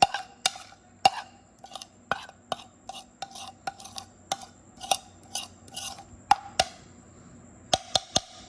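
A utensil clinking and knocking against a bowl while a salad is tossed with dressing: irregular sharp clicks, two or three a second, each with a short ring, pausing briefly near the end before a quick run of three.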